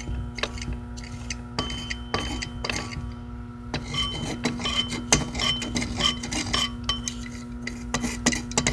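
Metal blade of an athame (ritual knife) clinking and scraping against a dish of salt water as it is worked in it. The short ringing clinks come thicker from about four seconds in.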